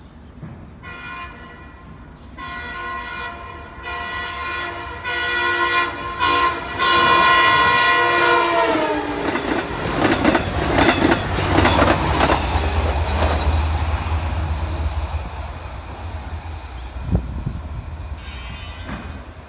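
Multi-chime air horn of an LIRR C3 bilevel cab car sounding several blasts as the train nears a grade crossing; the last blast is long and drops in pitch as the train passes. The wheels then clatter over the crossing and rail joints as the bilevel coaches go by, with the low rumble of the trailing DE30AC diesel locomotive.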